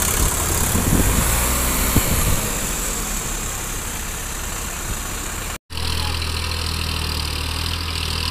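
Diesel engine of a New Holland 3630 tractor running while bogged in deep mud. After an abrupt cut a little past halfway, the steadier low hum of a Massey Ferguson tractor's engine, also stuck in the mud.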